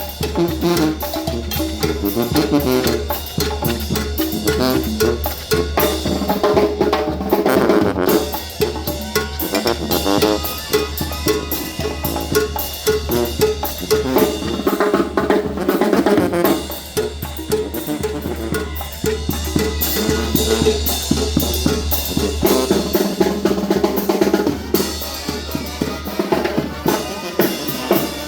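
Mexican banda music playing: a loud, steady band sound driven by bass drum and snare drum with rimshots and rolls.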